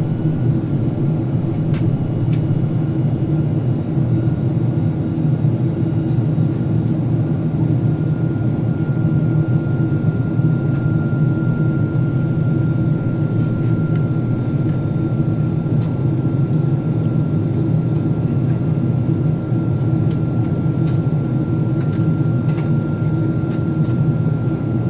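Steady cabin drone inside a Boeing 767-400ER airliner descending toward landing: engine and airflow noise, with a faint high steady tone above it.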